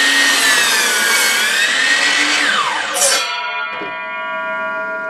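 Electric miter saw running and crosscutting a wooden board, its motor whine wavering under the cut and then dropping as the saw winds down about three seconds in. A sustained bell-like ringing chord follows.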